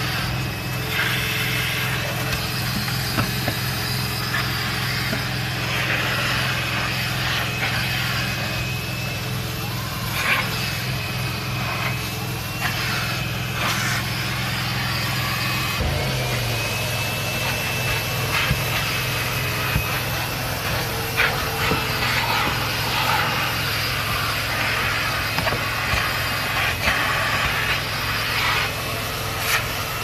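A machine's motor running steadily with a high whine, its low hum shifting about halfway through, with a few short knocks.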